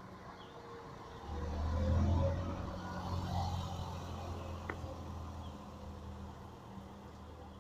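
Low engine rumble of a passing motor vehicle, swelling about a second in and then fading slowly, with a faint click near the end.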